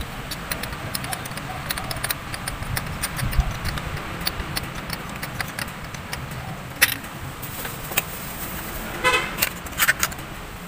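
Small clicks and light metallic taps of a spark plug and hand tools being handled in a car's engine bay, with a sharper tap about two-thirds of the way in. A brief pitched toot, like a car horn, sounds about nine seconds in.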